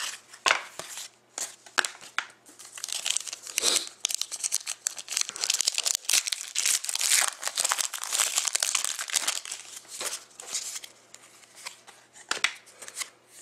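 Foil wrapper of a Panini Rookie Anthology hockey card pack being torn open and crinkled. The crackling is densest through the middle, with sharp snaps at the start and near the end.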